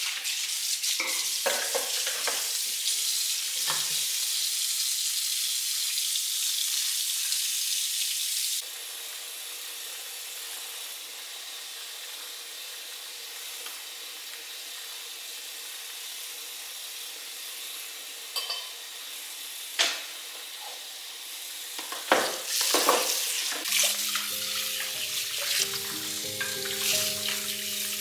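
Kitchen tap running into the sink with a steady hiss, which drops to a softer flow about a third of the way in. Near the end come a few knocks and clatters from handling dishes at the sink, with soft music coming in over the last few seconds.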